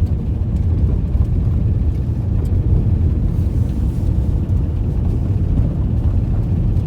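Steady low rumble of a vehicle driving, heard from inside the cabin, with no sudden changes.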